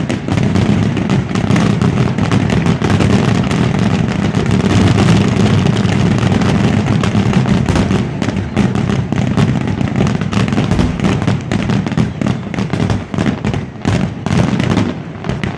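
Fireworks going off in a dense, rapid barrage of overlapping bangs and crackles over a continuous low rumble, thinning slightly near the end.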